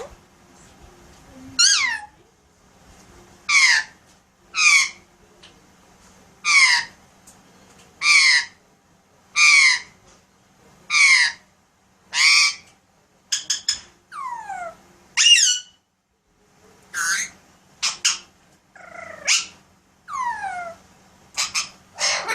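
Alexandrine parakeet giving a series of loud, harsh squawks, one about every second and a half, each sliding down in pitch. About two thirds of the way through come a few quicker, shorter calls before the spaced squawks resume.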